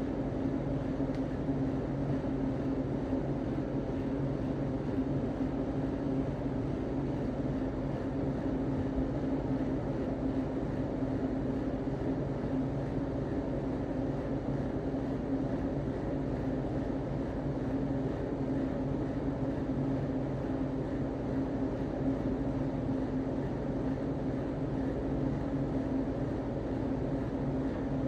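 A steady mechanical drone with a low hum that holds the same pitch and level throughout.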